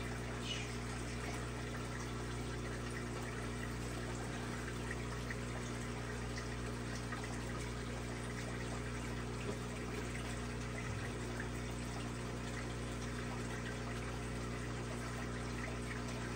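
Aquarium pumps and filters running: a steady hum with several fixed tones under a constant trickle of water.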